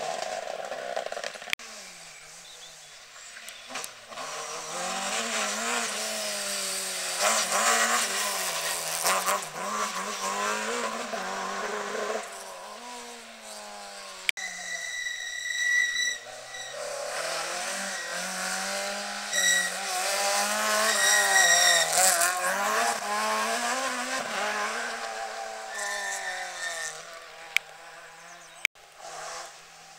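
Rally car engines revving hard and dropping back in pitch through gear changes, with tyre noise on the loose surface, growing and fading as the cars come through the bend. Around the middle come several short, shrill, steady tones.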